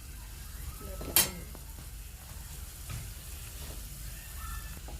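Crushed garlic, betel leaves and kalonji seeds frying in mustard oil on a low flame, a soft steady sizzle. A single sharp click about a second in.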